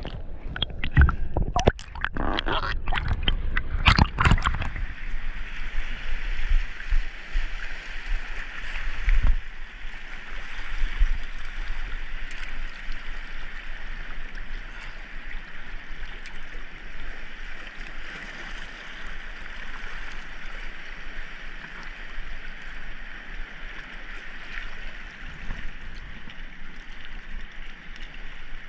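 Water splashing and gurgling in irregular bursts for the first few seconds, then a steady rush of sea water and surf as a swimmer moves through the shallows.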